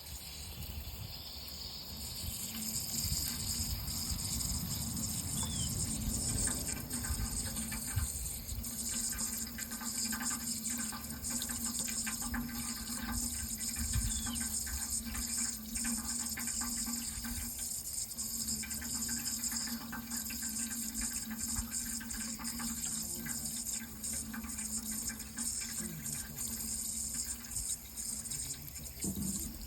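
Water running in a steady, continuous flow.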